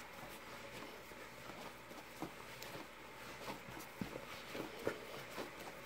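Hands kneading soft flour tortilla dough in a plastic mixing bowl: quiet, irregular soft pats and thuds as the dough is pressed and turned.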